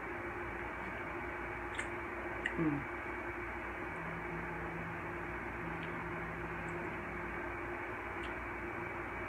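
Steady hiss and low electrical hum of the recording's background, with a few faint clicks and a brief low falling sound about two and a half seconds in.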